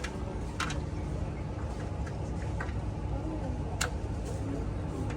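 Busy market background: a steady rumble and hum with faint distant voices, and a few short sharp clicks, the loudest about four seconds in.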